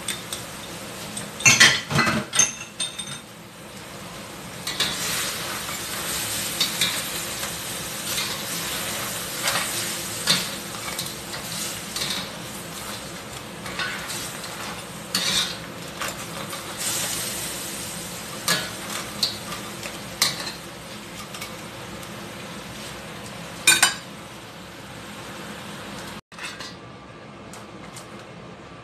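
Crabs and cornstarch-thickened sauce sizzling in a stainless steel pan while a metal spatula scrapes and clanks against the pan during stirring. The loudest clanks come in a quick cluster about two seconds in, and there is another sharp one near the end.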